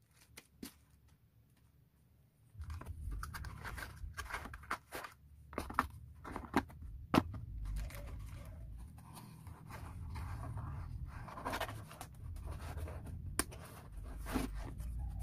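Packaging being handled: irregular rustling and crinkling with scattered sharp clicks and taps of small parts, starting about two and a half seconds in after a silent moment.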